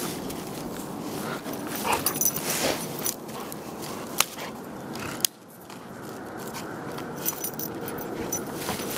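A dog digging and pouncing in snow after a ball: snow crunching and scuffing under its paws and muzzle, with a few sharp clicks. About five seconds in the sound drops off suddenly, then slowly builds back.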